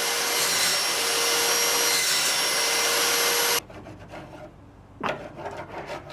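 Electric router running and cutting a half-depth lap joint into a pine rod, a loud steady whine over a rushing noise. It cuts off abruptly about three and a half seconds in, followed by a few light knocks.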